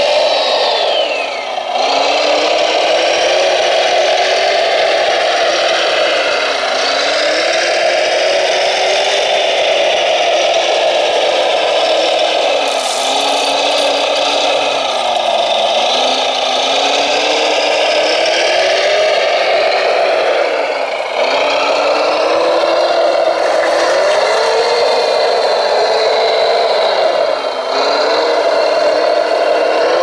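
Radio-controlled Volvo wheel loader working on gravel: a steady whining motor sound whose pitch dips and climbs back several times as it drives and works its bucket.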